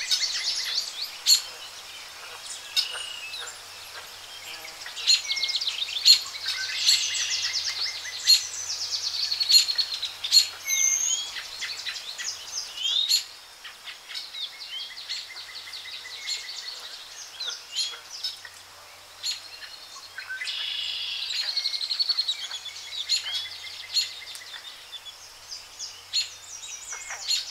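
Several birds singing and calling: a busy mix of high chirps and fast trills that comes in spells, busiest in the first half and again past the middle.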